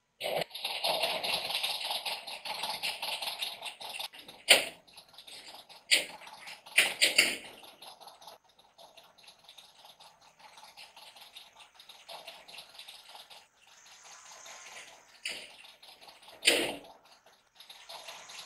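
Office door handles rattling and metal filing-cabinet drawers banging. A dense rattling clatter fills the first few seconds, then separate sharp knocks and bangs follow. The loudest comes about four and a half seconds in, another near the end.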